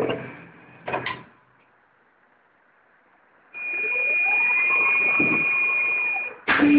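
Snap-on Quadriga tyre changer: machine noise fades out with a couple of clicks about a second in, then a pause. One of its motors runs for about three seconds with a steady high whine and a pitch that rises and falls, then stops abruptly. Another drive starts with a low steady hum near the end.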